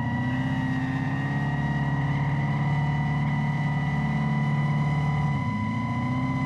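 Dodge Charger Daytona EV's Fratzonic Chambered Exhaust: a synthesized muscle-car exhaust note that the electric car plays through transducers and passive radiators, droning steadily under power. The note dips briefly about five seconds in and climbs back.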